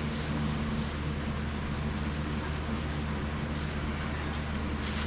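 Sandpaper rubbed by hand across a car body panel's old paint: strokes in the first second, a few lighter strokes after that, and more strokes near the end. A steady low hum runs underneath.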